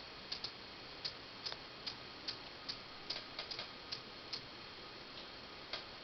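A run of about sixteen small, sharp clicks at uneven intervals, bunched quickly together a little past the middle, over a faint steady hiss.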